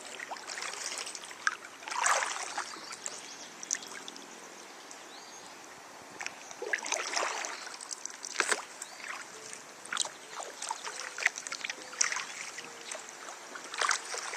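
Kayak paddle strokes splashing into the water and dripping, a stroke every couple of seconds.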